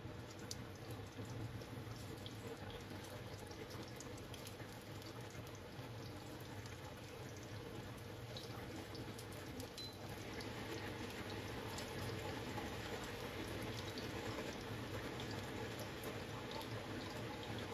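Water running from a kitchen tap into a sink, a steady hiss with faint drips and splashes, getting a little louder about ten seconds in.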